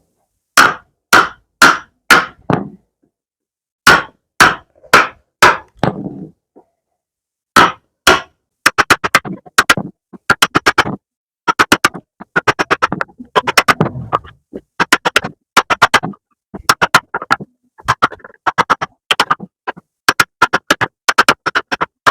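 Hammer blows on a wooden workpiece: two runs of four heavy strikes in the first six seconds, then quicker, lighter strikes in rapid runs for the rest.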